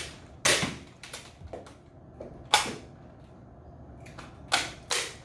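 A Nerf Rival foam-ball blaster being fired: four sharp pops, the last two close together near the end, with lighter clicks between them from the blaster being primed and reloaded.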